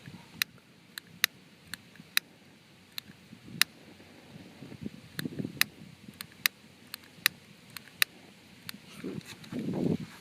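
Sharp, dry clicks at irregular intervals, about one to two a second, from a lighter being struck over and over to relight a firework fuse, with low rustling bursts from handling around the middle and near the end.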